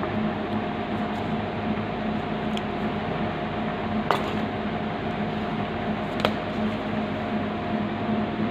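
A steady low hum with two light clinks, about four and six seconds in.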